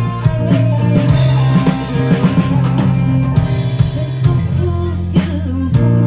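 Live rock band playing: electric guitar over bass guitar and drum kit, loud and steady.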